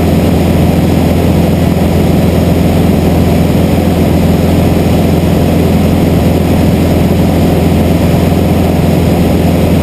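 Light single-engine propeller airplane in cruise, its piston engine and propeller droning at a steady, unchanging pitch as heard inside the cockpit.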